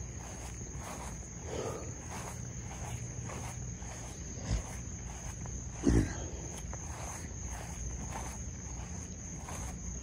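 Footsteps of a person walking, about two a second, over a steady high-pitched chorus of night insects. Two thumps sound near the middle, the louder one about six seconds in.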